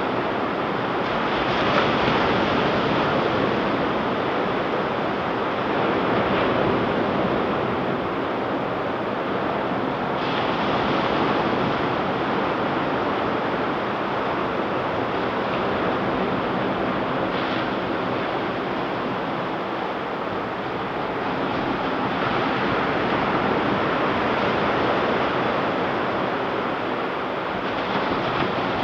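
Ocean surf washing onto a beach, a continuous rush that swells and eases every few seconds as waves break, with some wind on the microphone.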